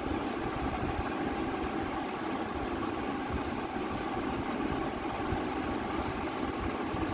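Electric fan running with a steady whir.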